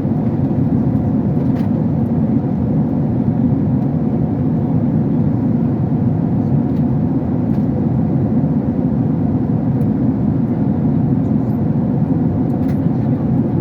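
Steady engine and air noise of an airliner in flight, heard inside the passenger cabin.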